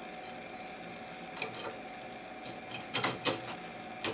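T8 fluorescent tube being fitted into an overhead light fixture: a handful of light clicks and taps as the tube is set into its end sockets and snaps in, the sharpest click near the end. A faint steady hum runs underneath.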